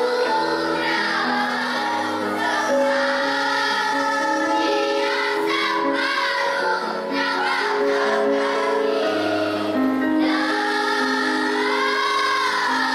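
A children's choir singing: several young voices holding sustained notes together, moving from note to note without a break.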